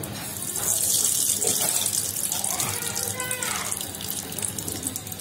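Hot cooking oil sizzling in a karahi as salt is sprinkled in: a hiss that swells about a second in, then slowly eases off.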